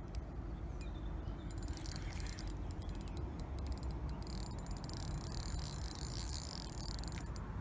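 Fishing reel giving a fast, high ticking for several seconds while a hooked carp is played, stopping abruptly near the end, over a steady low rumble.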